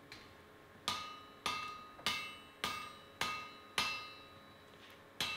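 Cross-peen hammer striking a red-hot axe head on an anvil, spreading the metal: six blows in an even rhythm a little under two a second, then one more after a short pause near the end. Each blow rings briefly.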